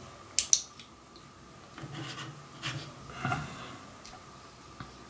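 Small plastic scale-model engine parts clicking and rubbing together in the fingers as a crankcase cover is fitted to the engine block: two sharp clicks about half a second in, then soft rubbing and handling noises. A faint steady high tone sits underneath.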